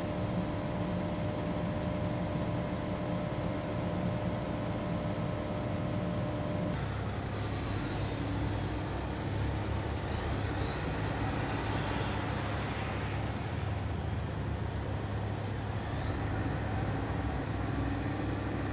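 Diesel tour coaches running and pulling away: a steady engine hum with held tones, changing abruptly about a third of the way in to a lower rumble. Several high-pitched whines glide up and down over the rumble in the second half.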